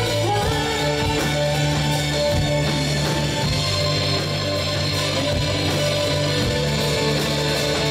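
Live rock band playing, electric guitar to the fore over bass, drums and keyboard.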